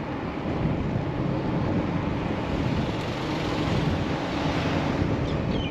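Steady wind rushing over a head-mounted microphone while riding a Razor SX500 electric dirt bike at speed.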